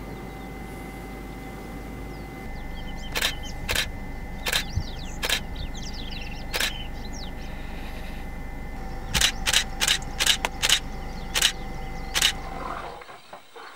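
A camera shutter clicking a dozen or so times, singly and in quick runs, over a steady low hum, with faint bird chirps behind. Near the end the hum stops abruptly.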